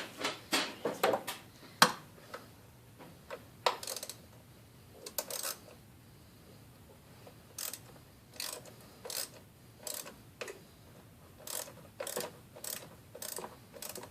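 Short bursts of clicking and rattling from hand tools and parts being worked loose on an engine's air intake. They come irregularly at first, with one sharp click about two seconds in, a pause near the middle, then a quicker run of regular strokes near the end.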